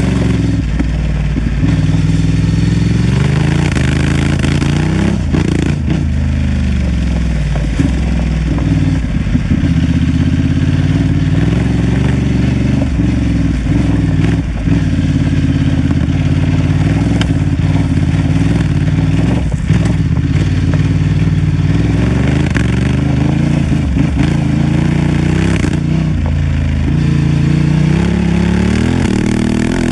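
Honda Transalp XL750's parallel-twin engine running under load, its revs rising and falling again and again through the throttle and gear changes, with scattered knocks and clatter from the bike over rough ground.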